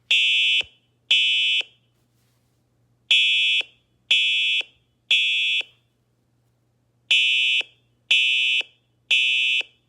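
Simplex TrueAlert fire alarm horn played through a tablet's speaker, sounding the temporal-three evacuation pattern: short blasts one second apart in groups of three, with a pause between groups. Each blast is a high horn tone around 3 kHz with a rapid buzz in it, the horn's 130 Hz modulation.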